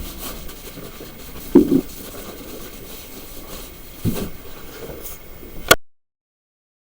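Handling noise while a Chromebook is wiped dry: a steady low hiss with a soft bump about a second and a half in and another about four seconds in. A sharp click comes near the end, then the sound cuts off abruptly.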